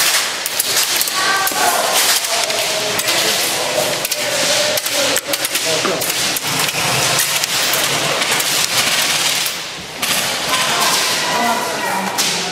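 Airsoft guns firing and BBs cracking against wooden walls and barriers: a run of sharp clicks and knocks over a constant hiss, with indistinct shouted voices now and then.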